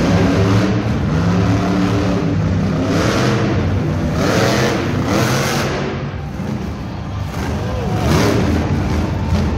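Monster truck's supercharged V8 engine revving in surges as the truck turns on the dirt, over loud arena music.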